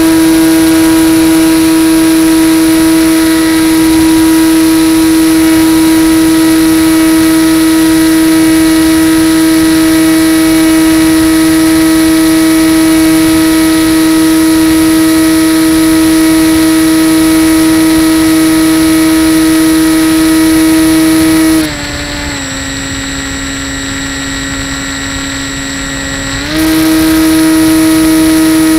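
Electric motor and propeller of a radio-controlled foam plane, heard from its onboard camera: a loud, steady whine over rushing air. About 22 seconds in the whine drops lower and quieter for around five seconds as the throttle is eased back, then returns to its earlier pitch.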